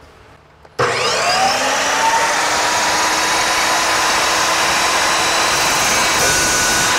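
Evolution chop saw with a 14-inch multipurpose Rage blade starting up suddenly about a second in, its whine rising as the motor spins up, then running steadily while the blade is brought down and cuts through an aluminium threaded rod.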